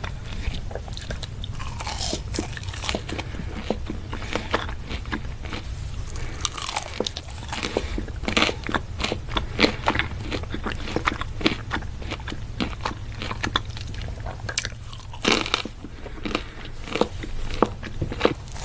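Close-miked eating: crunchy bites and chewing, many sharp crackling crunches coming irregularly, over a low steady hum.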